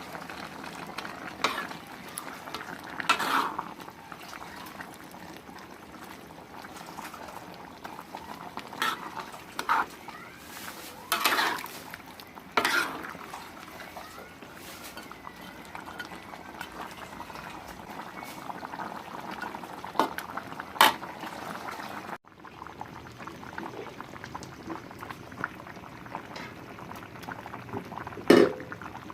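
Cooking pot bubbling at the boil, with a metal utensil knocking and clinking against the pot now and then.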